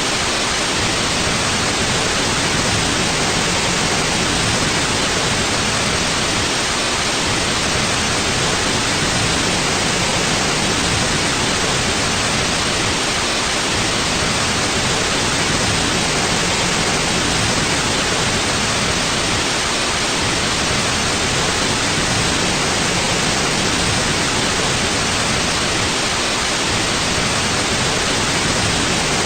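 Steady white noise: an even, unchanging hiss spread across the whole range from low to high.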